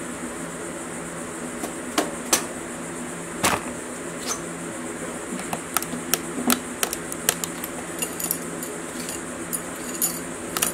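Light metallic clinks and taps of pushrods and valve-gear parts being lifted out of a classic Mini A-series cylinder head and handled. There are a few sharp clinks at first, then a quicker scatter of them in the second half.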